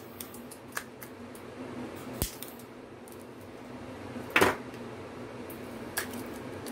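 A few sharp clicks and knocks from handling a small torch lighter and a tumbler on a countertop, the loudest a short clatter about four and a half seconds in, over a faint steady hum.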